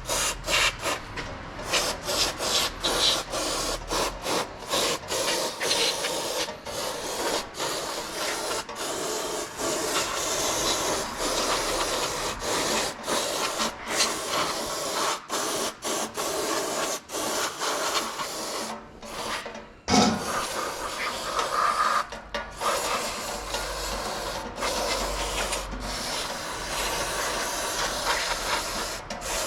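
Scrubbing by hand on brake parts: a continuous rasping rub broken by many short pauses, as the parts are cleaned before the front disc rotors are fitted.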